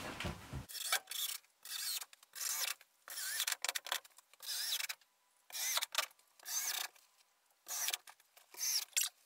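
A dozen or so short scraping, rubbing sounds in irregular bursts, from wooden strapping boards being handled and pressed against plastic sheeting on a framed wall.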